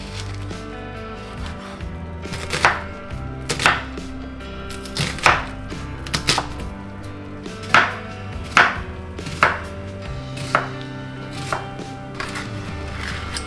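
Chef's knife slicing an onion on a wooden cutting board. About a dozen short, sharp cuts come at an uneven pace, starting about two seconds in.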